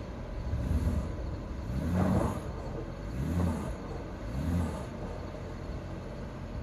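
BMW car engine revving in about four repeated surges, each rising and falling in pitch, straining under load while pulling a buried light pole out of the ground by rope.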